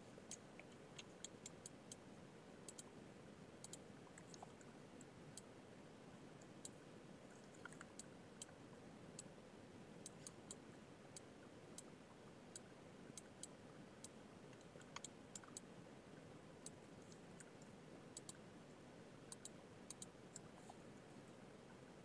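Near silence with faint, irregular clicks of a computer mouse, coming singly and in small clusters.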